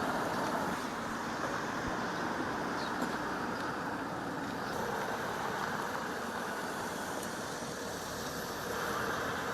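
Steady road and engine noise of a car driving, an even rumble with no distinct events.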